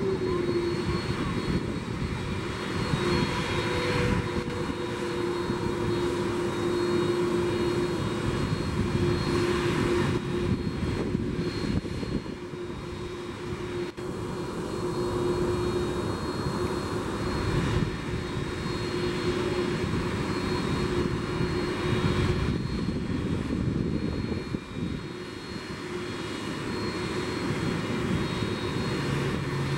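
Airbus Beluga ST's jet engines running steadily on the ground: a constant high whine over a low rumble.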